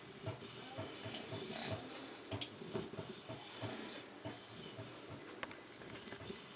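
English bulldog puppy breathing noisily while dozing, snuffling breaths about twice a second. A sharp click comes about two and a half seconds in.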